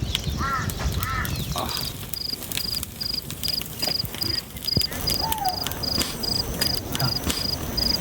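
A cricket chirping in an even rhythm, between two and three high chirps a second, starting about two seconds in. Two short bird calls come near the start and another in the middle.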